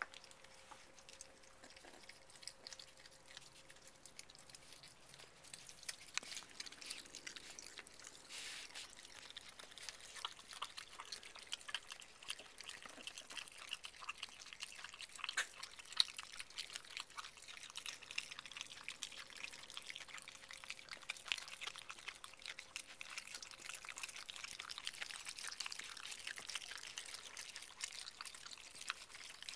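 Virginia opossums eating soft, wet food: a faint, dense run of quick wet chewing and smacking clicks.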